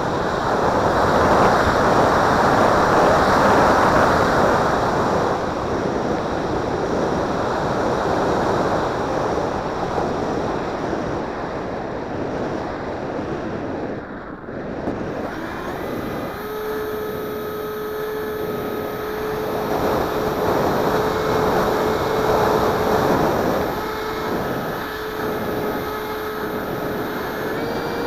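Electric ducted-fan flying wing in flight, heard from an onboard camera: loud rushing airflow over the microphone. About halfway through, the fan's steady whine rises out of the rush and holds at one pitch.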